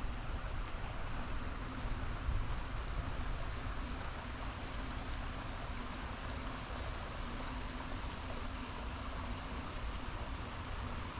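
A river flowing with a steady rush, and light rain falling on the water.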